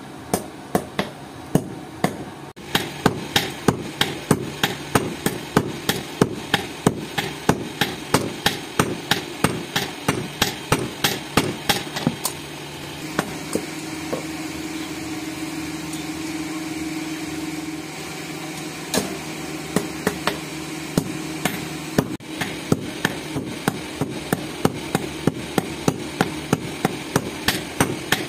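Blacksmith's hammer striking steel in a steady rhythm of about two to three blows a second. Midway there is a pause of several seconds with a steady hum and only a few scattered blows, and then the hammering resumes.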